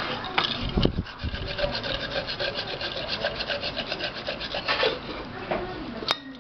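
Coarse sandpaper being rubbed in quick back-and-forth strokes, about six a second, over the rim of an aluminium pressure-cooker lid to smooth it so the rubber sealing ring seats properly. The strokes stop about five seconds in, and a sharp click follows near the end.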